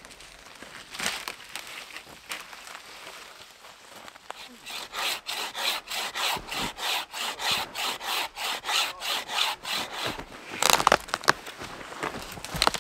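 Hand saw cutting through a dead, snow-covered tree trunk in steady back-and-forth strokes, about two and a half a second. Footsteps crunch in snow before the sawing starts, and a louder, rougher burst comes near the end.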